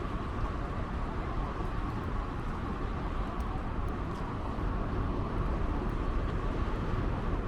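Steady city street noise: a low, even rumble of traffic with no distinct events.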